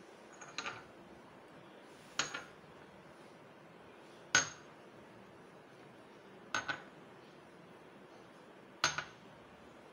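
Small square glass cups clinking as they are set down on a stone countertop, one about every two seconds, each a sharp click with a brief high ring.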